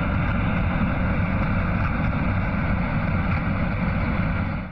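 Steady radio static: an even rushing hiss from a weather radio receiver, cutting off suddenly at the very end.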